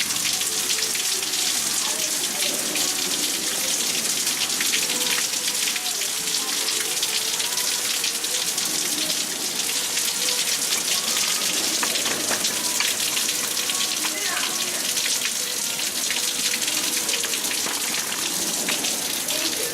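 Heavy rain falling steadily: a dense, even hiss with many small drop ticks through it.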